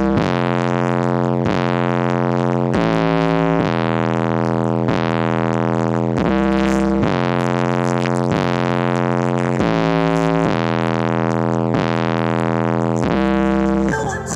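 Bass-heavy music played through two Image Dynamics IDMAX 12-inch subwoofers: a string of held synth bass notes, each about a second long, stepping up and down in pitch.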